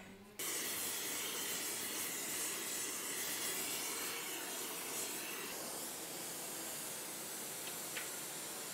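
Hand-held gas torch burning with a steady hissing flame that starts abruptly just after the start.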